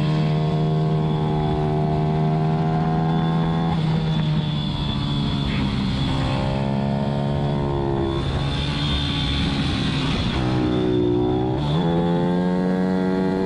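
Pit bike engine racing at high revs, heard close up from on board. The revs drop sharply about four and about eight seconds in, and again near the end, then climb back each time.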